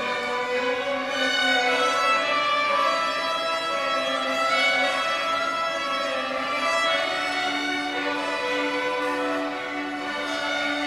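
A school string orchestra of violins, violas and cellos playing a piece, with sustained bowed notes moving from chord to chord.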